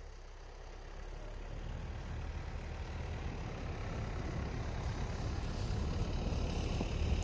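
Mitsubishi Pajero's 4M41 3.2-litre turbodiesel running as the SUV drives slowly through deep snow, growing steadily louder as it comes closer.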